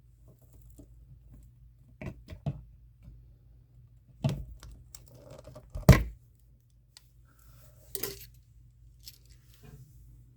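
Hand wire strippers working on the outlet's house wiring, giving a handful of sharp clicks and snaps as insulation is cut and pulled off, the loudest about six seconds in.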